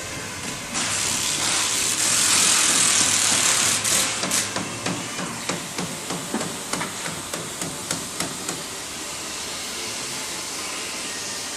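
A loud hiss of air starts just under a second in and lasts about three seconds. It is followed by a run of quick knocks, about two or three a second, that get weaker and stop around eight seconds in. These are shop tool sounds from work on an RV body.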